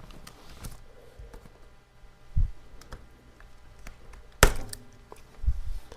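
Light clicks and taps of a tablet battery being lifted out of its frame and handled, with a low thud about two and a half seconds in, a sharp click about four and a half seconds in, and another thud near the end.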